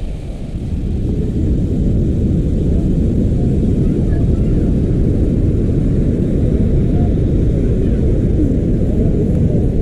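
Steady low roar of river water rushing over rocks at the top of a large waterfall, growing louder about a second in and then holding level.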